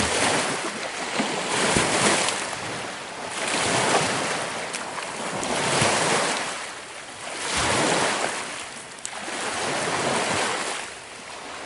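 Small lake waves breaking and washing up on a rocky, pebbly shore, each surge swelling and falling away about every two seconds.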